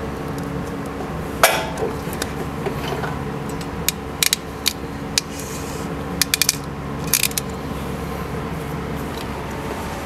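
Klein ratcheting wire crimper clicking as it is squeezed down on heat-shrink butt connectors: a single sharp click, then quick clusters of clicks a few seconds later. A steady low hum runs underneath.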